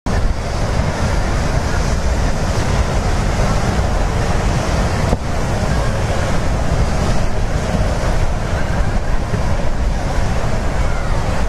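Ocean surf washing onto a beach in a steady rush, with wind buffeting the microphone as a heavy low rumble.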